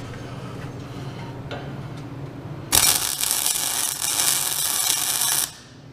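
Welding arc laying a short bead: a loud crackling hiss that starts abruptly a little under three seconds in and stops abruptly about three seconds later, over a steady low hum.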